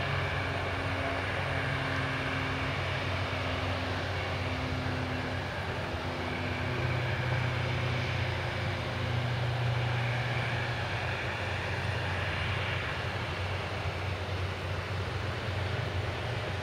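Steady low hum and rushing noise of a Boeing 737-700 jet airliner and its ramp equipment at the gate, with a faint higher whine above it.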